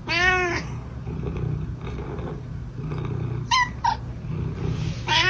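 A pet's drawn-out call that rises and falls in pitch right at the start, two short calls about three and a half seconds in, and a steady low growling rumble throughout.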